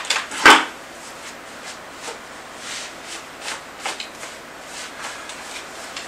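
A cordless drill and a plastic five-gallon bucket being handled: one sharp knock about half a second in, then faint rustling and scraping. The drill is not running.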